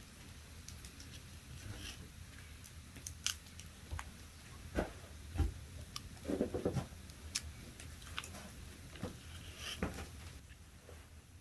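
Irregular sharp clicks, crackles and crunches, with a few louder knocks around the middle and a short low muffled sound just after them.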